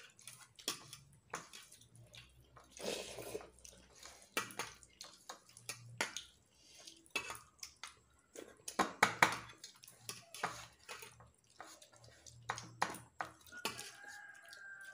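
Fingers mixing rice and curry on a stainless steel plate: wet squishing and scraping, with irregular small clicks and clinks against the metal.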